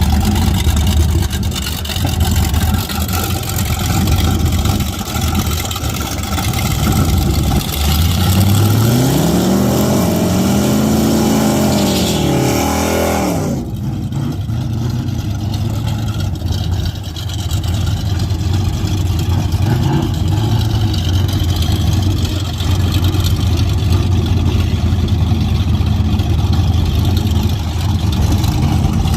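Car engines running at a drag strip. About eight seconds in, one engine revs up and back down a few times, then the sound changes suddenly and a steady low engine drone carries on.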